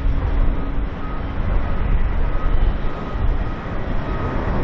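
Boeing 767-300ER's twin jet engines at takeoff thrust as the airliner lifts off and climbs away: a loud, steady rush of noise with a deep rumble underneath.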